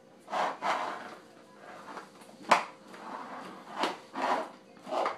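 A baby handling household things, making a string of short knocks and rattles, with one sharp knock about two and a half seconds in that is the loudest.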